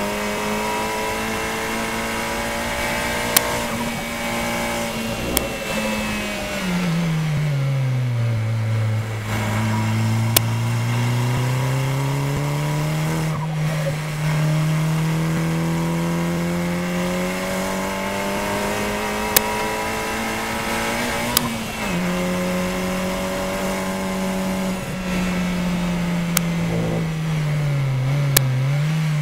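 KTM X-Bow Elite race car's turbocharged four-cylinder engine under hard driving on track. Its pitch drops steeply about seven seconds in as the car slows for a corner, then climbs steadily as it accelerates, with another drop past the twenty-second mark. A few sharp clicks stand out above the engine.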